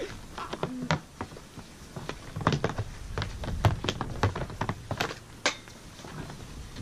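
Hockey stick blade and puck clacking on a synthetic shooting pad: a string of irregular sharp taps from stickhandling, with a few louder cracks.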